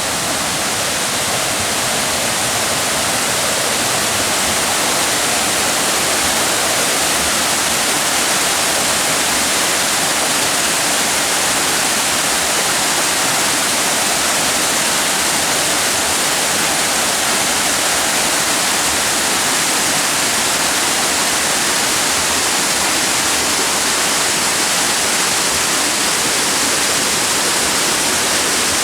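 Waterfall pouring, a steady loud rush of falling water with no change.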